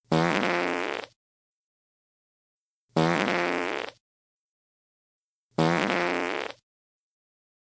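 Fart sound effect: a buzzy one-second fart played three times, about two and a half seconds apart, with dead silence between. Each fart starts loud and tails off slightly.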